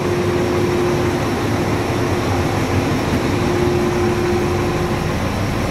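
Spartan fire truck's diesel engine running at raised RPM in pump mode, driving its Waters C-Series fire pump: a steady running noise with a steady hum that drops out about five seconds in.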